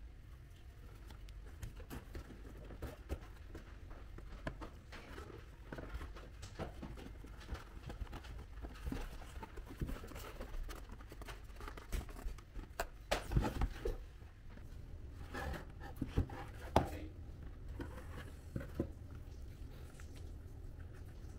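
Cardboard pieces being handled: scattered light taps, clicks and rustles, busiest and loudest in the middle and again a little before the end, over a low steady hum.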